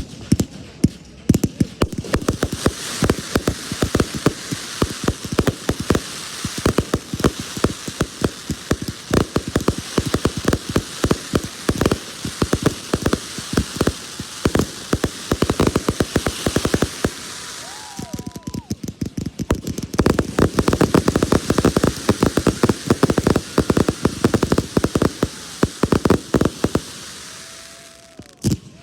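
Fireworks crackling: a dense, rapid stream of small pops over a hiss, easing off briefly about two-thirds of the way through, then resuming and cutting off just before the end.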